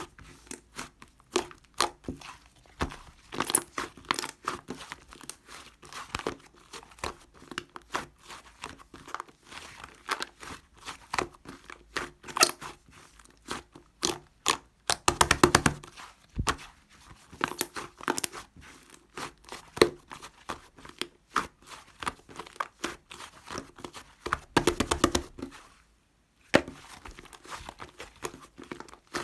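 Fluffy grey clay slime being squished and pressed by hand, making a steady stream of wet crackles and clicks as small air pockets pop. There are two longer stretches of fast crackling, about halfway through and near the end.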